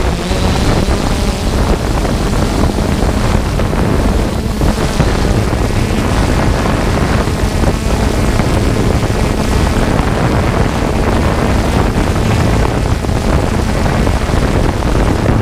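A drone's propellers running steadily, heard from the drone's own onboard camera, with wind buffeting the microphone as it descends.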